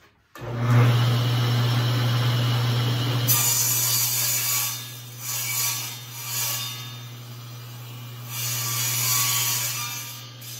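Table saw switched on: its motor comes up to speed with a sudden steady hum, then the spinning blade rips a wooden strip in four cutting passes, each a second or less.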